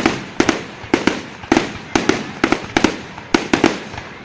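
Aerial fireworks bursting in quick succession: sharp bangs at about two to three a second, each trailing off before the next.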